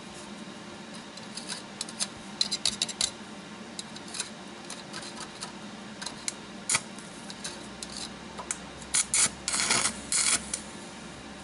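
Stick (arc) welding: the electrode crackles and sputters in short, irregular bursts as the arc is struck and breaks off, then holds for a longer sizzling run of about a second and a half near the end.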